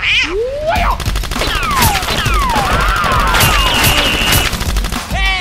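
Rapid-fire gunfire sound effects, a fast run of shots like a machine gun, with two falling whistles and a warbling, then steady, high tone layered over them.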